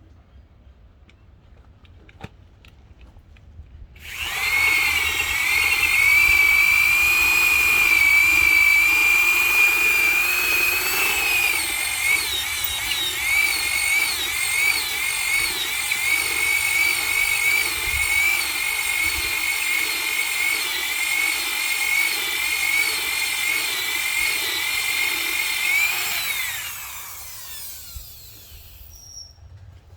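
Power drill boring a hole through a mahogany countertop: the motor starts about four seconds in and runs at a steady high whine that wavers slightly under load for about twenty seconds, then winds down with a falling pitch.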